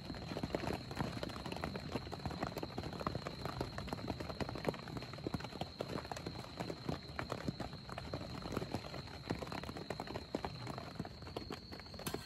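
Heavy rain falling on a tent: a dense, irregular patter of drops hitting the fabric overhead, with a faint steady high whine underneath.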